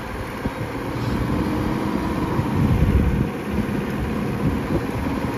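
Off-road 4x4 engine running steadily as a stuck vehicle is pulled out during a trail recovery.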